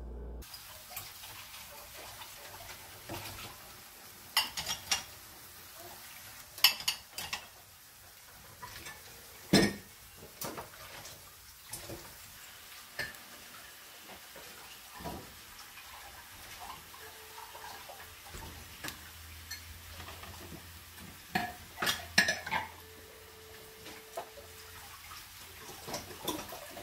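Scattered clinks and knocks of a nonstick pan and its glass lid being handled, with chestnuts shifting against each other in the pan. The loudest knock comes about ten seconds in, and a quick cluster of clatters comes a little past twenty seconds in.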